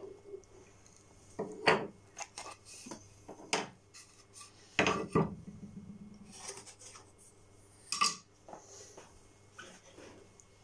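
Wooden parts of a hand-built hedgehog feeding box being handled on a workbench: irregular knocks, taps and scrapes of wood on wood, the loudest a few seconds apart.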